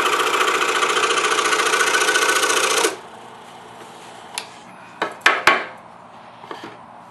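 DeWalt scroll saw running, its blade reciprocating rapidly with a steady motor tone, then switched off and stopping abruptly about three seconds in. A few short knocks follow.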